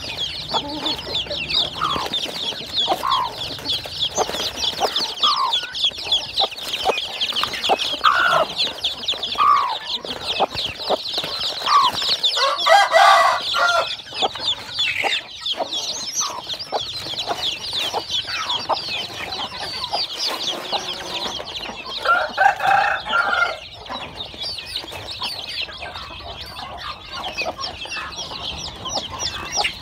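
A brood of young chicks peeping constantly in a dense, high-pitched chorus, with the mother hen clucking low every second or two. Twice, about a third of the way in and again about three-quarters through, louder drawn-out hen calls rise over the peeping.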